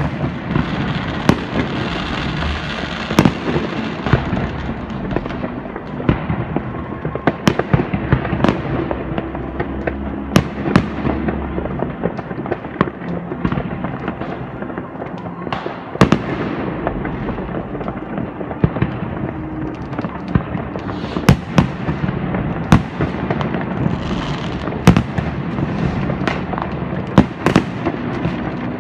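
Many fireworks and firecrackers going off at once: a steady crackling din with frequent sharp bangs over it.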